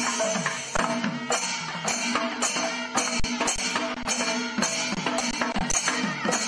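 Percussion-led traditional-style music: a fast hand-drum rhythm whose strokes drop in pitch, over a steady drone.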